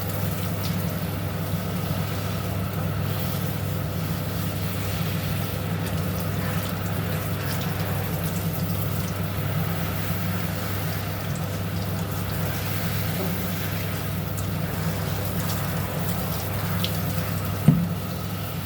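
Shower water running steadily, with a constant low hum beneath the spray. A single sharp knock near the end.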